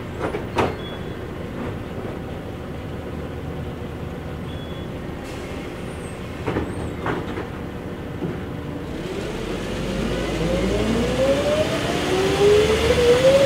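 Scania OSC11 11-litre six-cylinder CNG bus engine heard from inside the cabin, running steadily at low revs with a few sharp clicks. About nine seconds in the bus pulls away: the engine note rises in pitch and grows louder as it accelerates.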